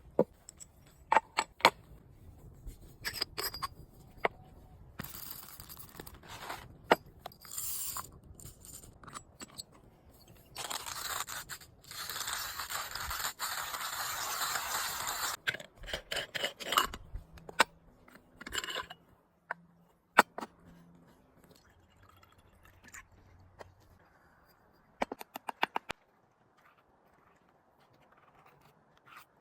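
Camp coffee-making gear being handled: a string of clicks, knocks and scrapes, with a steady rushing noise lasting about four seconds around the middle.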